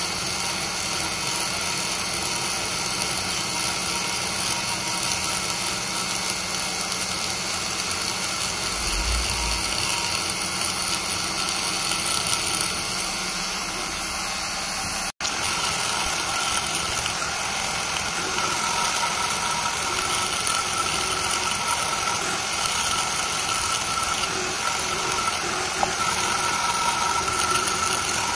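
Die grinder running at high speed with a single-cut alloy burr, cutting away the aluminium of a Toyota 2JZ-VVTi cylinder head's port bowls in a steady whining grind. The sound breaks off for a split second about halfway, then carries on.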